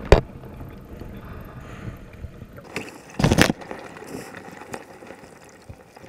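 Muffled underwater sound inside a crab trap on the seabed: water moving, with scattered small clicks and knocks, a sharp click at the very start, and a louder rushing surge about three seconds in.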